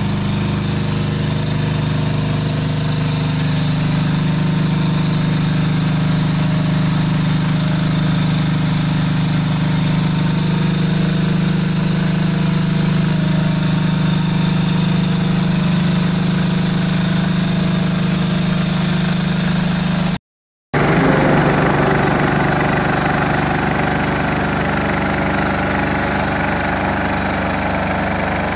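Engine of a paving-joint weed-cleaning machine running steadily while its rotating head scrubs dry weeds and dirt from between paving stones. After a half-second cut-out about two-thirds of the way through, the sound turns noisier and harsher.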